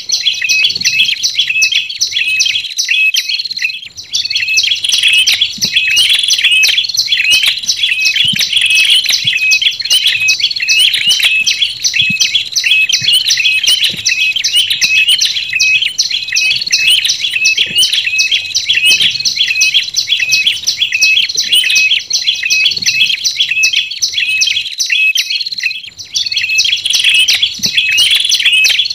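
Bird-lure recording of olive-backed tailorbird calls combined with ashy tailorbird calls: loud, rapid, unbroken series of sharp high chirps, many notes a second, with a short lull about three seconds in and another near the end.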